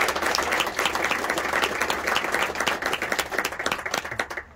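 A small group of people applauding with steady, dense clapping that stops near the end.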